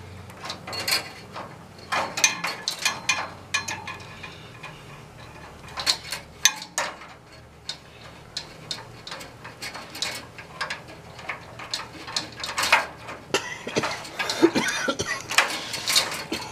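Irregular small metallic clicks, taps and rattles as a brass thermostatic expansion valve is hand-threaded onto the coil's tube fitting and its thin copper capillary tubes are shifted about.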